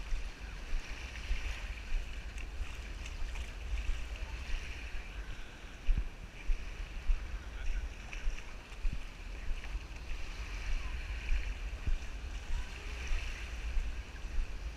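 Beach ambience: wind rumbling on the action camera's microphone over distant voices of people on the beach and swimming, with a few soft knocks from handling.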